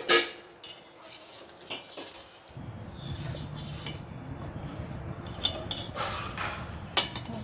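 Metal spoon clanking and scraping against a cooking pot as spices are put in and stirred, with a loud clank right at the start and scattered clinks after it. A low steady hum sets in about two and a half seconds in.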